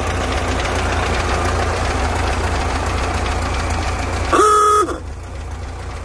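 1929 Ford Model A's four-cylinder engine idling with a steady low rumble, then its ahooga horn gives one short honk about four seconds in.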